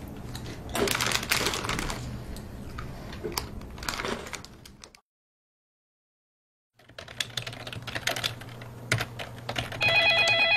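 Typing on a computer keyboard, broken by about two seconds of dead silence halfway through. Near the end a telephone starts ringing with a loud, steady electronic ring.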